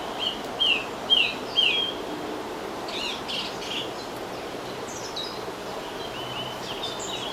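Small birds singing: a short falling note repeated four times in the first two seconds, then other chirps and calls, over a steady background hiss.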